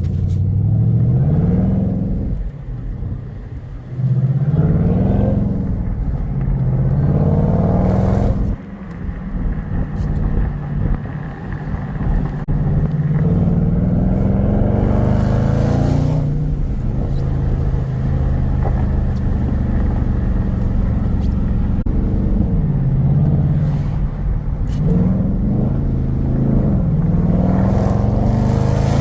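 Dodge Hellcat's supercharged V8 accelerating hard again and again, its pitch climbing, dropping and climbing again, with one long steady pull in the middle.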